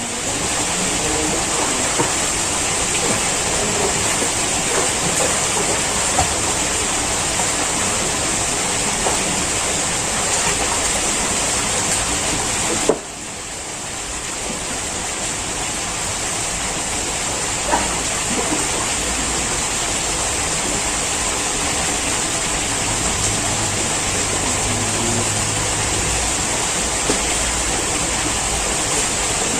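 Steady rushing noise with a constant high hiss. It drops out abruptly about 13 seconds in and builds back up, and there is one faint click about 18 seconds in.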